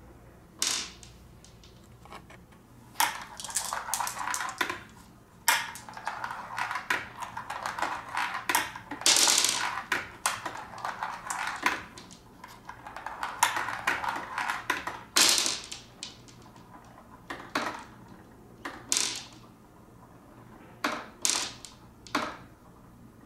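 Marbles rolling down the plastic chutes of a marble run standing in a water-filled glass tank, clicking and clattering against the track and each other. A few single sharp clicks come first, then a dense stretch of clatter for about twelve seconds, then scattered clicks again.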